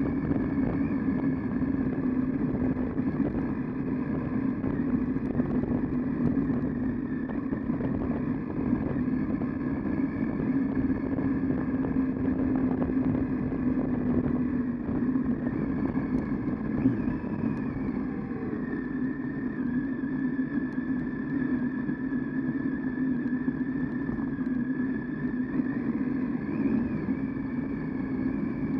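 Triumph Tiger 800XC motorcycle's inline three-cylinder engine running steadily as the bike rides along a rutted dirt track, its note shifting slightly about two-thirds of the way through.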